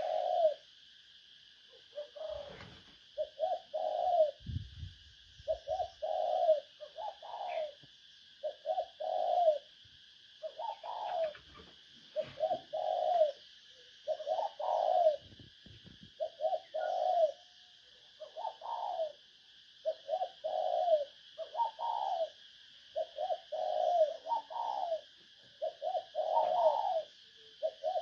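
Spotted dove (cu gáy) giving its repeated 'thổ' cooing call, used as a lure for wild doves. The call comes in short groups of two to four low coos, a group every second or two, over a steady high hiss.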